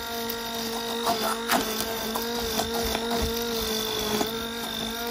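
Immersion (stick) blender running steadily at low speed, puréeing hot cooked strawberries in a stainless steel saucepan: an even motor hum, with a few knocks.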